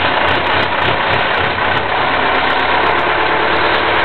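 Safari vehicle's engine running steadily, heard from on board, with a low pulsing rumble in the first couple of seconds.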